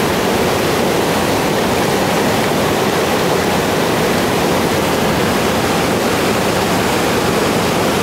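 Whitewater rapids of the Tallulah River: a loud, steady rush of water that does not let up.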